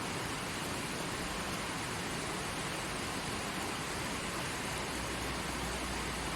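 Creek water flowing in a steady, even rush. A low rumble joins underneath about five seconds in.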